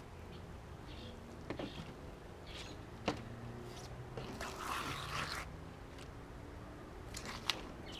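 Knife and hands working a skinned catfish on a plastic folding table: a few sharp taps and clicks, with a scraping, tearing rustle lasting about a second around the middle.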